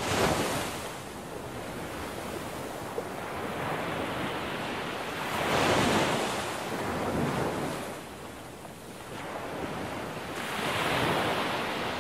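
Sea waves washing ashore, with wind: a steady hiss that swells and fades several times.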